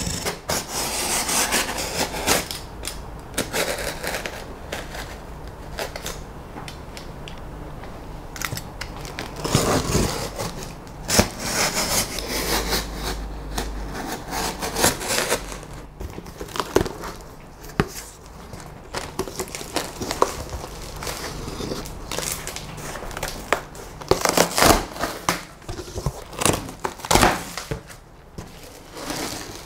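Box cutter slicing the packing tape on a cardboard box, then cardboard flaps being opened and foam packing being pulled out: an irregular run of scraping, tearing and rustling with sharp clicks.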